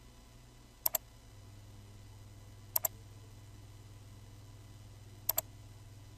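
Three computer mouse clicks, each a quick press-and-release pair of snaps, about two seconds apart, over a faint steady low hum.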